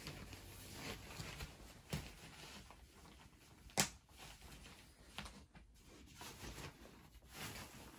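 Quiet handling of a Graco Pack 'n Play playard attachment, with a few short sharp clicks, the loudest nearly four seconds in, as its plastic parts are clicked into place.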